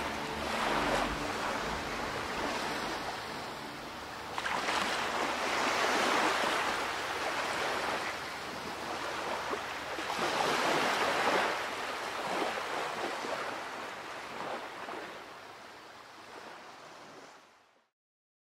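Ocean surf breaking and washing up the beach, swelling loudest twice, about five seconds in and again around ten to twelve seconds, then fading out near the end.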